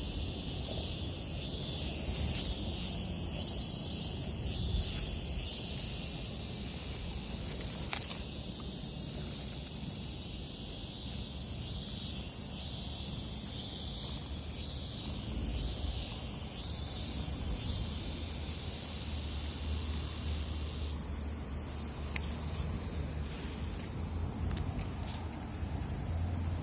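Cicadas chirring in summer: a steady high-pitched drone that fades out near the end. Over it, another cicada's pulsing call repeats about one and a half times a second in two runs, near the start and in the middle.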